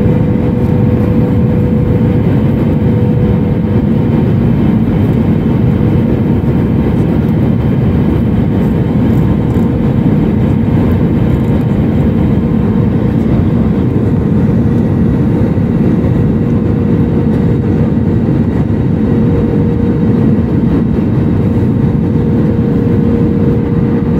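Airbus A320neo cabin noise in flight: the steady, loud roar of the jet engines and airflow heard from inside the cabin, with a faint steady tone over it.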